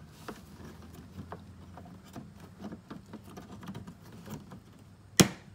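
Faint handling clicks and rustles of the temperature sensor being fed back through the front grille mesh, then one sharp click about five seconds in as the sensor snaps into place.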